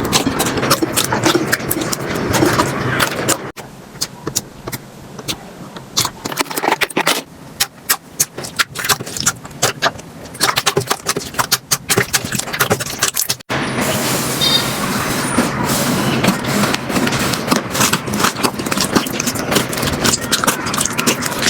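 Slime being squished and poked, with dense crackling and popping clicks. The sound breaks off abruptly twice, about three and a half seconds in and again past thirteen seconds, and the middle stretch is quieter with sparser pops.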